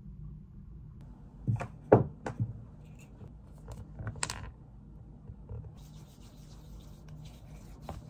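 Small objects knocked and set down on a desk: three or four light knocks, the loudest about two seconds in. A brief rustle and soft rubbing follow as items are handled.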